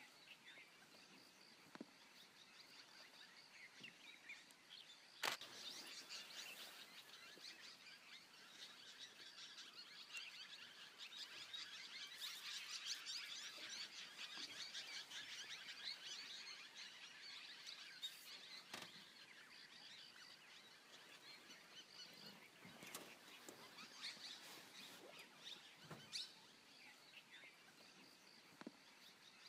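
Faint outdoor ambience with small birds chirping, busiest in the middle. A few sharp clicks stand out, the loudest about five seconds in.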